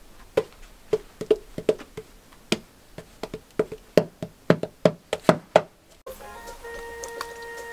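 Background music: a percussive pattern of sharp, hollow wood-block-like knocks. About six seconds in it changes to a few held, steady tones.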